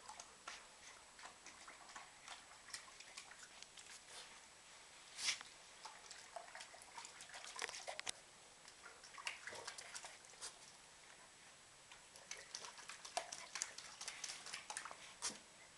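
A puppy eating from a stainless steel bowl: faint, irregular clicks and wet mouth sounds against the metal, with one sharper knock about five seconds in.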